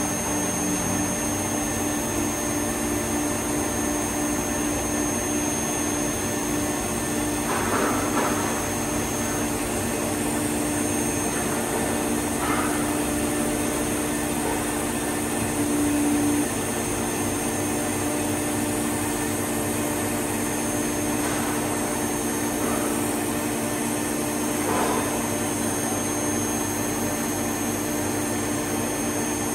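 EMCO CNC lathe running: a steady mechanical hum made of several held tones over a broad hiss, with a few short swells as its axes and turret move.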